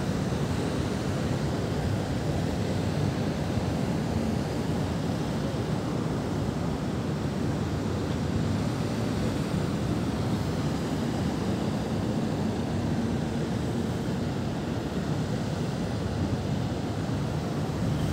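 Steady low rumble of city traffic, an even, unbroken hum.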